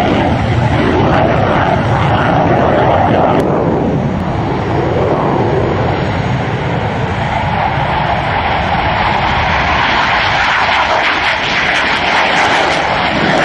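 F-15C Eagle's twin Pratt & Whitney F100 turbofan jet engines running loud as the fighter flies past. The noise eases a little about four seconds in and builds again near the end.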